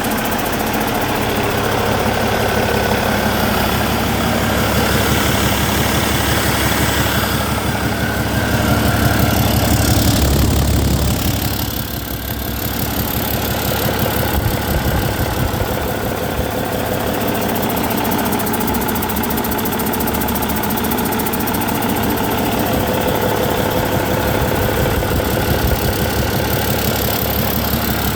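Cummins ISX15 inline-six 15-litre diesel engine running at a steady idle during a test run, rising a little for a few seconds near the middle before settling back.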